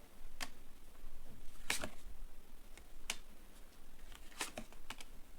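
Tarot cards being handled: about half a dozen sharp clicks and snaps of card stock, a second or so apart, the loudest a double snap near the middle.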